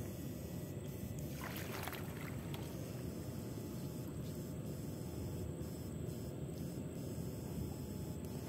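Water sloshing and splashing steadily, as from wading through shallow swamp water, with a brief sharper splash about one and a half seconds in.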